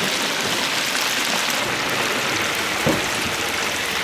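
Food deep-frying in hot oil, a steady crackling sizzle, with a single dull thump about three seconds in.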